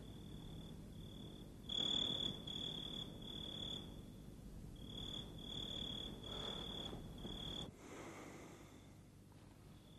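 Crickets chirping: a high trill broken into pulses of about half a second, over a low background hum. The hum drops away near the end and the chirping goes on more faintly.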